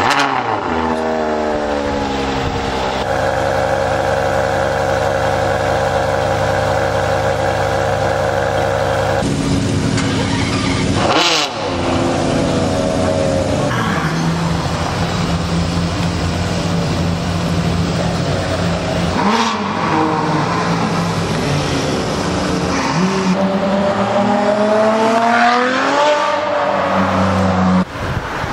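Ferrari 599 GTO's V12 on straight-piped exhaust, very loud: revs falling away from a blip to a steady idle in the first few seconds, long stretches of idling, then several rising revs near the end.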